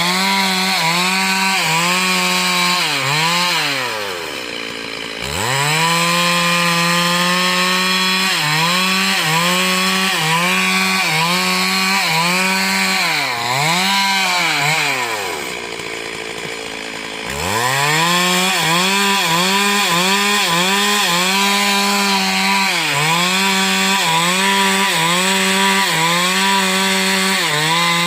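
Stihl MS 382 two-stroke chainsaw running at high revs while cutting wood, its pitch dipping briefly again and again as the chain takes load. Twice, about four and about fifteen seconds in, it drops back toward idle for a second or two and then revs up again.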